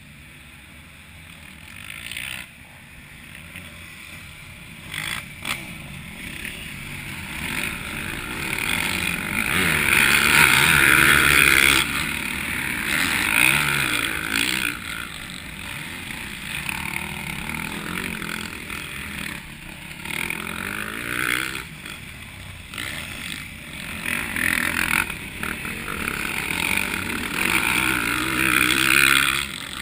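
Motocross bikes' engines revving as they ride past through a dirt-track corner, rising and falling in pitch. The loudest passes come about ten to twelve seconds in and again just before the end.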